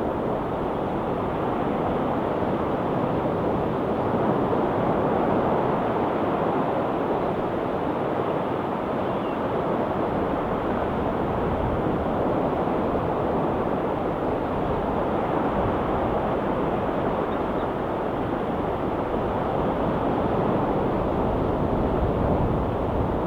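Ocean surf breaking steadily on a rocky shore, a constant even wash of noise with only slow swells in loudness.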